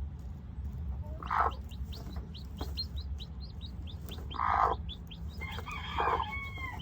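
Newly hatched chicks peeping in a quick run of short high notes, about four or five a second, with three louder, lower calls from the broody mother hen.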